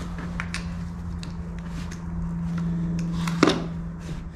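Small steel welding-fixture parts handled and screwed together by hand: light metallic clicks, with one sharper click about three and a half seconds in, over a steady low hum.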